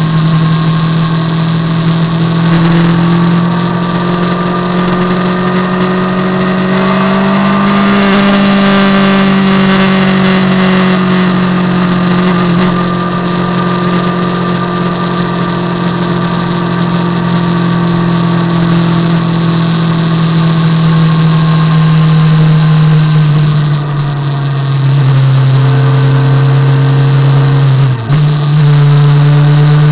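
Motorcycle engine running at road speed, its note rising and falling with the throttle, with wind and road noise. The note drops lower about three-quarters through, and near the end there is a brief dip in loudness before the engine note rises again.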